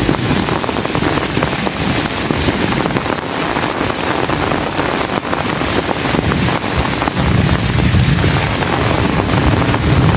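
Heavy rain pouring steadily, with wind buffeting the microphone; a low rumble swells about seven seconds in and eases a couple of seconds later.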